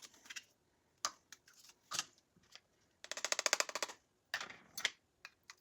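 Small kitchen handling sounds while measuring ingredients into a sauce bowl. A few sharp clicks and taps, then a rapid rattling clatter lasting about a second in the middle, and a shorter burst of clicking near the end.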